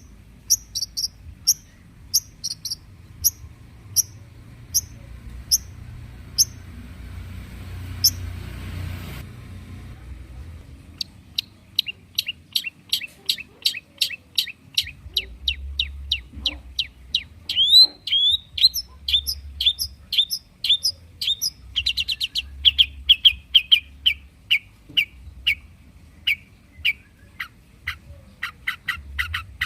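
Long-tailed shrike singing: sharp, high single notes about twice a second, then after a short gap a fast, chattering run of short descending notes, several a second.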